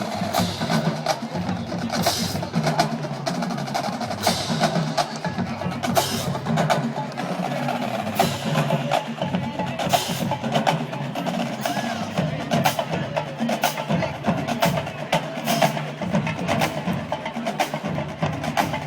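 Marching band drumline playing a cadence: quick sharp snare and stick clicks over recurring bass drum hits.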